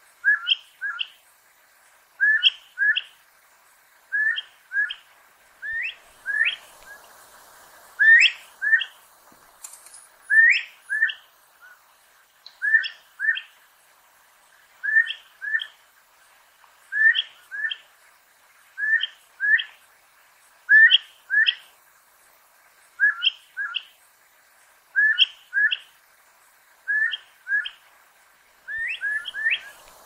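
Elegant crested tinamou calling: pairs of short, rising whistles repeated about every two seconds.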